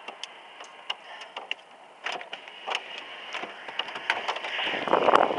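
Hailstones striking with scattered, irregular sharp ticks over a faint hiss. A rushing noise rises toward the end.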